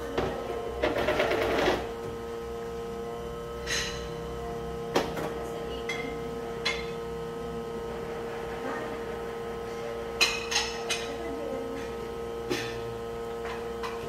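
La Spaziale S2 espresso machine's pump running with a steady hum while it pulls a single shot, with a brief noisy burst about a second in and a few light clicks later. The shot is being run to program the single-shot button's volume during calibration.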